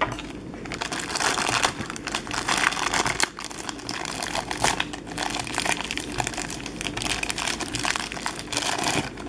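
Thin clear plastic bag crinkling and crackling in the hands as a small figurine is worked out of it, with a brief lull about three seconds in.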